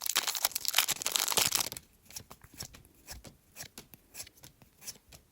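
Foil Pokémon booster pack wrapper crinkling and tearing for about two seconds, followed by sparse soft ticks of trading cards being slid and flipped.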